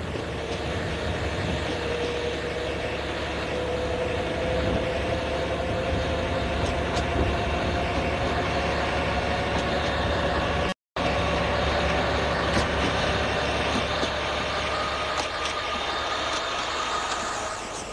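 15-inch gauge diesel locomotive pulling a passenger train past, its engine note climbing slowly and steadily as it works. The sound drops out for an instant about eleven seconds in.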